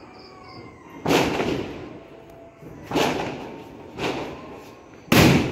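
Firecrackers going off: four sharp bangs about a second or two apart, each followed by a short echoing tail, the last the loudest.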